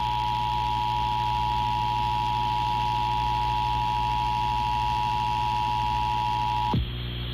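Emergency Alert System attention signal: the steady two-tone alert tone (853 and 960 Hz together) held without a break over a low hum and hiss. It cuts out with a short falling slide near the end.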